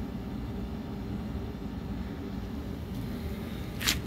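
A steady low rumble of background noise, with one short, sharp crackle near the end.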